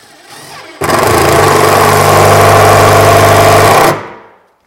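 Cordless impact driver driving a screw through the gable panel into the cabinet, a steady hammering buzz that starts about a second in and stops after about three seconds.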